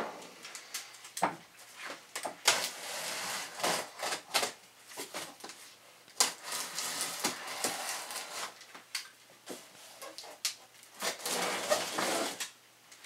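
Cardboard shipping boxes being handled and opened: scattered knocks and scrapes of hands on cardboard, with rasping stretches as packing tape is cut and pulled.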